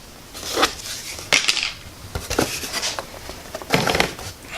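Foam RC airplane parts being handled and fitted together: a string of light knocks, clicks and scrapes.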